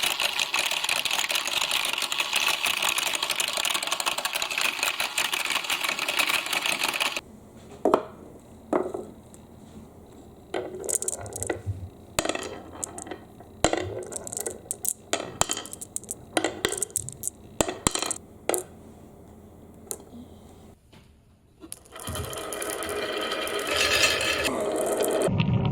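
Toy mini washing machine running with glass marbles rattling in its drum, stopping abruptly about seven seconds in. Then single glass marbles click and clack at irregular moments, and a steady rattling starts again near the end.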